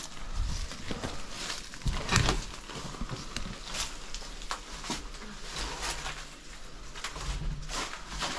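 Irregular footsteps crunching and crackling over debris and undergrowth, with scattered knocks and low thuds.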